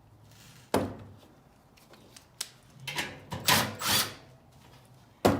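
Small hardware parts and tools being handled: a sharp clack about three-quarters of a second in, a run of rattling and scraping around the middle, and another sharp clack near the end.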